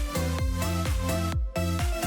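Electronic dance background music with a steady beat, breaking off briefly about one and a half seconds in.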